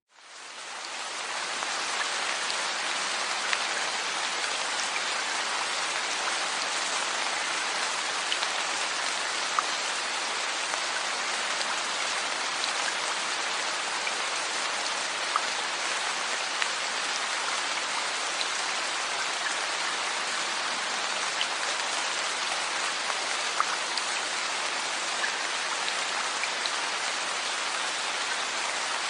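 Steady rain falling, with scattered drops ticking, fading in over the first second or so.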